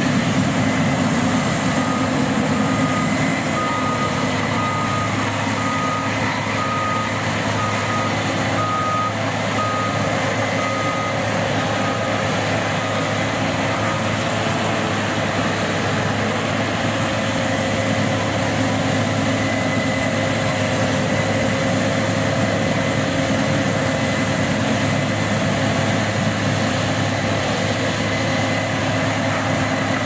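Heavy harvesting machine, likely a combine harvester, with its engine running steadily. A reverse alarm beeps in an even series, a little more than once a second, until about halfway through, then stops while the engine carries on.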